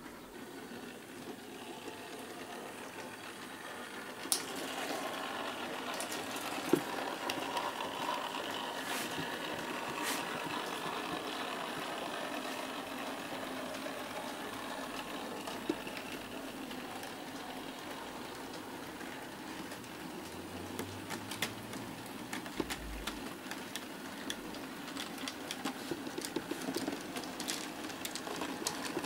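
OO gauge model steam locomotives running along the track, their small electric motors whirring and the wheels rattling over the rails, with occasional sharp clicks.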